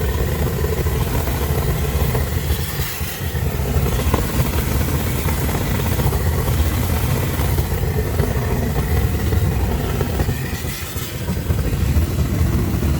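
An engine or motor running steadily, with a low, loud rumble.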